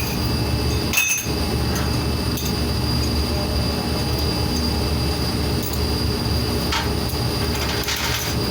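Steady industrial machinery noise with a low hum and a thin high whine, broken by a few sharp metallic clinks of tools on metal, the loudest about a second in.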